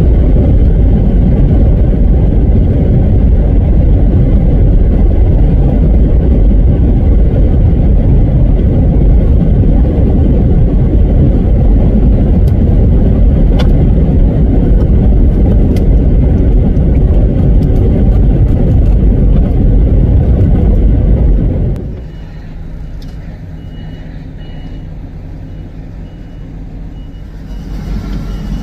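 Loud, heavy low rumble of a semi truck driving at highway speed, road and wind noise filling the cab. About two-thirds of the way in it cuts to the truck idling while it backs into a parking spot, its reversing alarm beeping about once a second.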